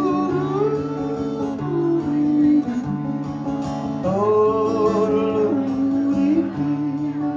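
Live country music played before the first verse: an acoustic guitar backing with held chords and a wavering, gliding melody line above it.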